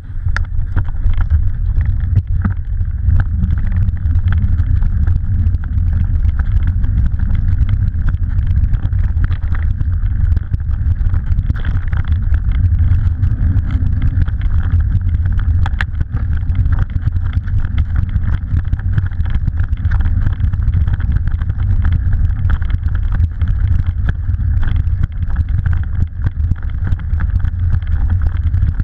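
Steady low rumble of wind buffeting an action camera's microphone while riding fast over a bumpy grass trail, with the hiss of tyres through long grass and an occasional knock from the bumps.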